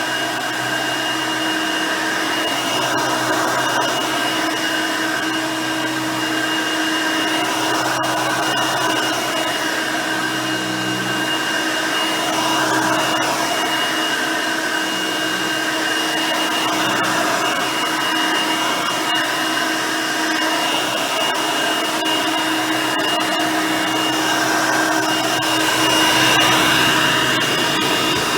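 Hoover Elite High Performance upright vacuum cleaner running steadily with a high motor whine, its 5-amp motor and nine-blade fan driving a single-row brush roll across the floor, with small rises and dips in level as it is pushed and pulled.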